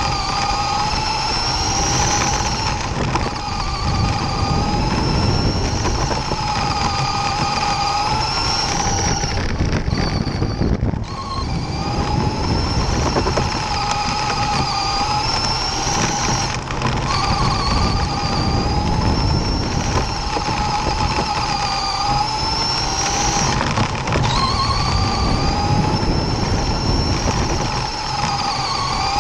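RC dirt oval race car heard from a camera on its own body: the motor's whine rises and falls every six to eight seconds as the car speeds up and slows around the oval, with a brief drop about ten seconds in, over a low rumble from the tyres on dirt.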